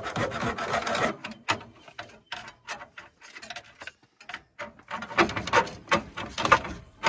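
Irregular clicks, rubbing and clattering of hands handling parts around the radiator and engine fan. It is busiest at the start and again for the last couple of seconds.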